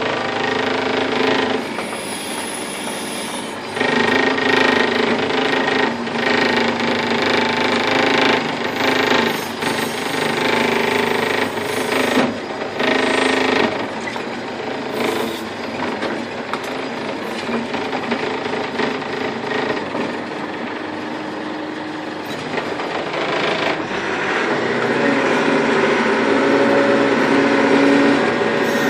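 Cat 416C backhoe loader's diesel engine running, its level rising and falling unevenly, loudest and roughest in the first half and building again near the end.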